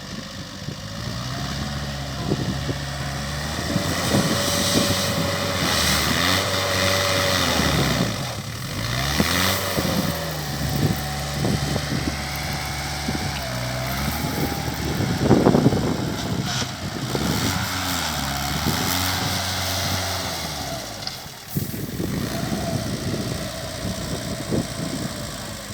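Concrete mixer's engine running, its pitch dipping and rising again several times as its speed changes.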